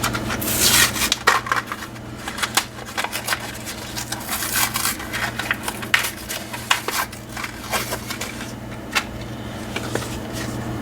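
Quick irregular clicks, taps and crinkling from handling small engine parts while the valve stem seals are being put on, over a steady low hum.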